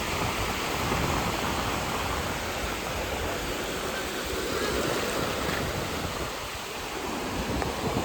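Sea surf washing onto a beach: a steady rushing noise.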